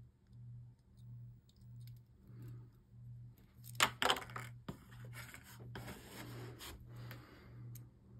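Sharp clicks about four seconds in, then several seconds of scraping as leftover sprue plastic is trimmed off small plastic Beyblade parts with snips and a box knife. A low hum pulses about twice a second underneath.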